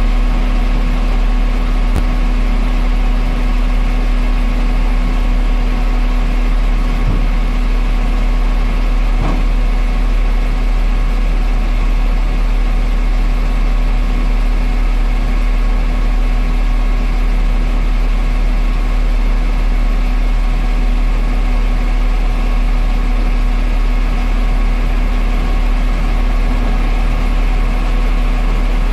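A heavy engine running steadily at an unchanging speed: a low, constant hum with a fixed tone over it and no revving.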